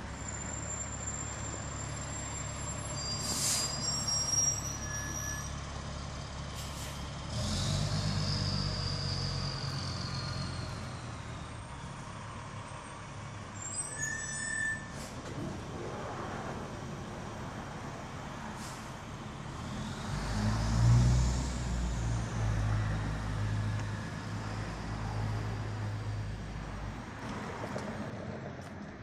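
Diesel engine of a 2002 Pierce Dash tiller ladder truck (Detroit Diesel Series 60 straight-six) running at low speed as the truck manoeuvres, with several short, sharp air-brake hisses and a few high brake squeals. The engine grows louder for several seconds about two-thirds of the way through.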